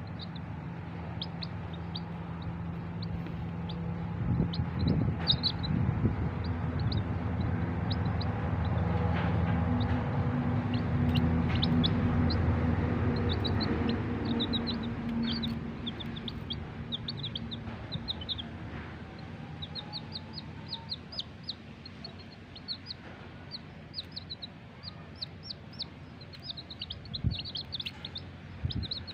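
Young chicks peeping over and over with short, high-pitched cheeps. A low hum swells in the first half and fades away, with the peeping going on over it.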